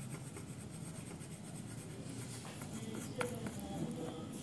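Graphite pencil shading on paper: a steady, scratchy rasp of quick strokes, with one light tick about three seconds in.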